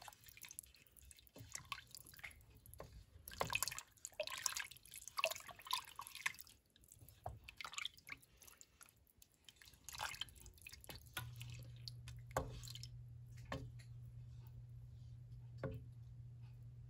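Wooden spoon stirring broth, beef roast and vegetables in a stainless steel stock pot: quiet sloshing and dripping of liquid with irregular knocks and clicks. About eleven seconds in, a steady low hum starts and the stirring sounds thin out to a few clicks.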